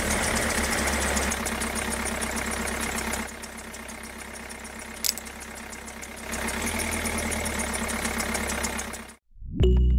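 Tractor engine idling with a fast, even clatter. It drops in level for about three seconds in the middle, comes back up, and cuts off abruptly about a second before the end.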